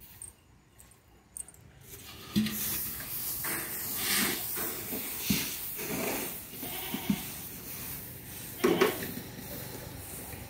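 Goats bleating several times, short calls with the loudest near the end, over a rustling hiss of paddy grain being walked through.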